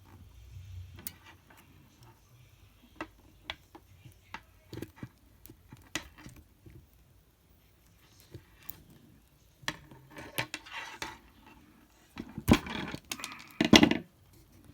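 Klein Tools 11053 wire stripper being worked on a 10-gauge wire: scattered light clicks and taps of the tool's metal jaws and handles, then two louder snaps near the end as the jaws close and strip the insulation.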